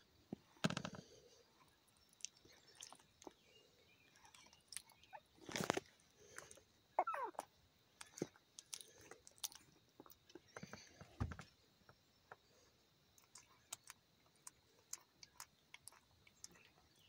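Faint, irregular clicks and rustling as a hand strokes and handles a puppy's fur on a lap, with a brief squeak about seven seconds in.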